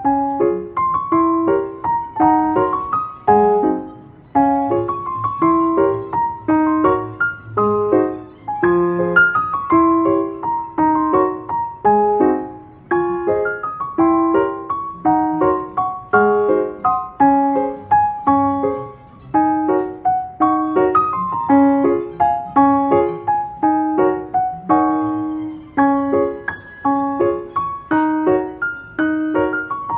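Background piano music: a steady flow of gently struck notes and chords.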